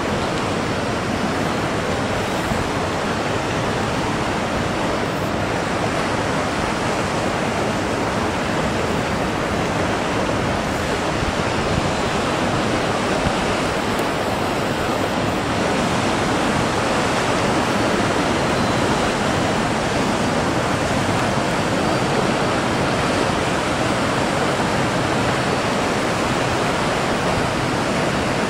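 Ocean surf: a steady, loud rush of swell breaking in the harbour entrance.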